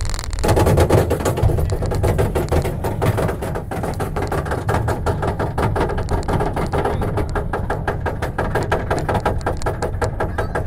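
Roller coaster car climbing the lift hill: a fast, even run of clicks from the lift chain and anti-rollback ratchet over a low rumble.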